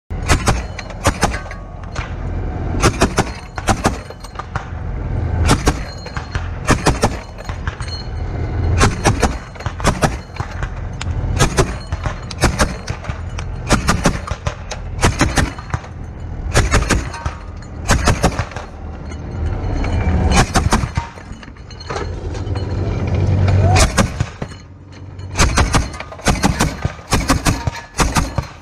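Gunfire and explosions in combat: sharp cracks and bangs, at times several a second, over a low rumble.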